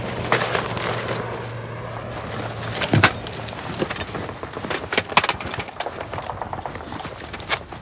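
Film battle sound: scattered sharp cracks and thuds of a scuffle on dirt, with one heavy thud about three seconds in, over a low steady hum that stops at that point.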